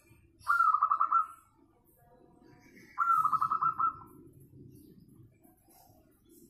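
Caged zebra dove (perkutut) cooing: two calls about two and a half seconds apart, each a clear note that breaks into a quick run of rapid pulsing coos.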